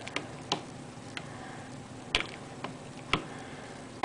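About six sharp, irregular clicks and taps from the plastic microwave rice-cooker bowl and the microwave being handled between heating spells.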